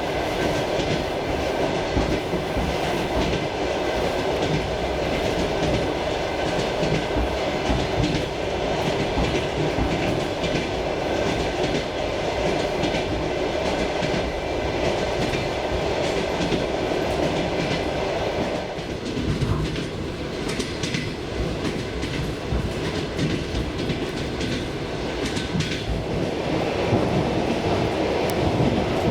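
Suburban electric train carriage in motion, heard from inside: a steady rumble of the running gear with the clickety-clack of the wheels over rail joints. The rumble eases somewhat a little past the middle and grows again near the end.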